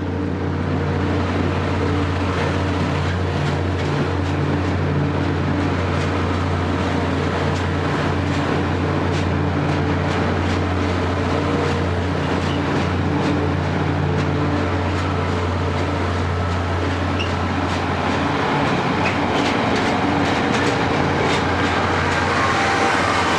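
Loram C21 rail grinder passing close at low speed: a steady diesel engine drone under the noise of wheels rolling and clicking over rail joints. The drone drops away about 18 seconds in, leaving the wheel and rail noise.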